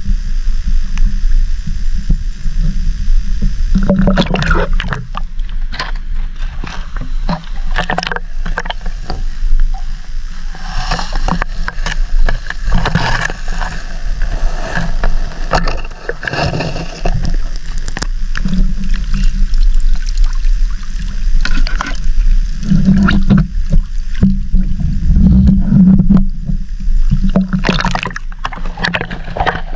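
Water sloshing and gurgling around an action camera held in or under shallow seawater, heard muffled, with a constant low rumble. Irregular splashy crackles and knocks start about four seconds in.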